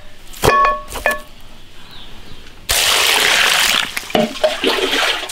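Two ringing clinks, then from a bit past halfway water pouring steadily into a basin of chopped beef ribs.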